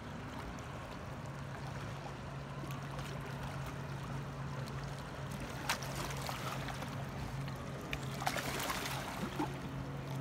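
Small river waves lapping at the shore around the shallows, with the steady drone of a distant motorboat engine coming in about a second in. A single sharp click a little past halfway.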